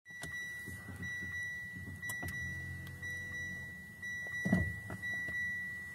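Mitsubishi Outlander PHEV powering up: a steady high electronic tone holds over a low hum and stops just before the end. A few light clicks, and one louder low thump about four and a half seconds in.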